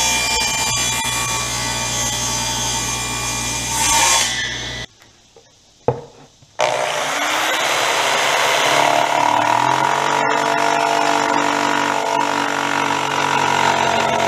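Table saw running and cutting 3/8-inch plywood, a steady machine noise with a low hum that swells near the end of the cut. After a sharp break and a single click, a second power tool starts up about six and a half seconds in, its pitch climbing briefly and then running steadily.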